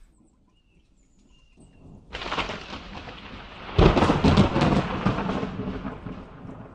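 Thunder picked up by a phone's microphone: a sudden clap about two seconds in, a louder crack near four seconds, then a rumble that dies away.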